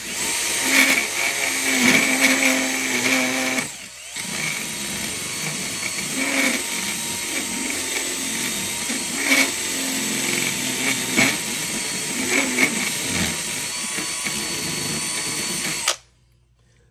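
Cordless drill spinning a small grinding bit against plastic, grinding it away; the motor runs with a steady high whine, stops briefly about four seconds in, starts again and cuts off suddenly near the end.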